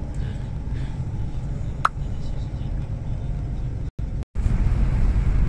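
Steady low rumble of a moving vehicle, with one sharp click just before two seconds in. The sound cuts out twice, briefly, about four seconds in and comes back louder.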